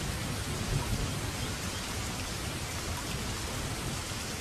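Steady rain, an even hiss with a low rumble underneath.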